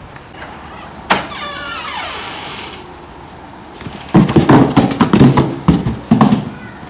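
A front door opening: a sharp latch click and then a falling squeak that fades over about a second and a half. From about four seconds in, a loud flurry of knocks, scrapes and rustles as a cardboard box is picked up from the doorstep.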